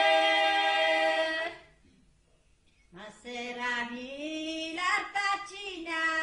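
Women singing an Abruzzese folk song unaccompanied: a long held note fades out about a second and a half in, there is a short pause, then the next phrase begins with sliding, ornamented pitch.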